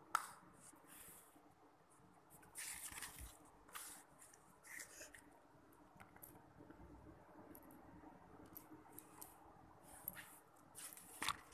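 Lego pieces being handled and fitted together on a hard floor: faint clicks and short scratchy rustles, with a sharp click right at the start and another near the end.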